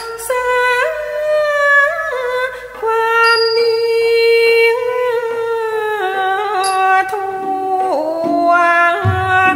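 Thai classical singing from a piphat ensemble performance: a single voice holds long, sliding, ornamented notes. Small high-ringing cymbal strokes, typical of the ching, come about every three seconds, and low drum strokes come in near the end.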